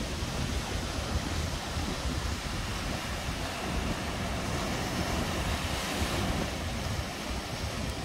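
Sea surf breaking and washing among the rocks of a narrow inlet, a steady rushing hiss that swells briefly about six seconds in, with wind buffeting the microphone in low rumbling gusts.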